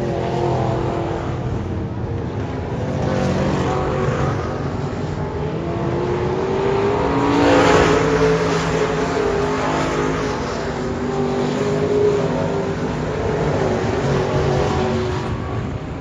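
Several dirt-track race cars' engines running and revving together around the oval, their pitches rising and falling as they go through the turns. About halfway through, one car passes close and is loudest.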